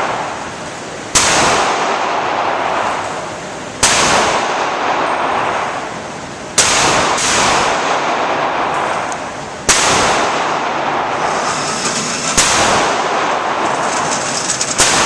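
Pistol shots fired with the gun held upside down, about six single shots spaced roughly three seconds apart, each a sharp crack followed by a long hissing tail that slowly fades.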